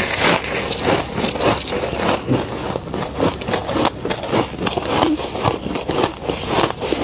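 Close-miked crunching and chewing of freezer frost, a dense run of crisp icy crackles several times a second.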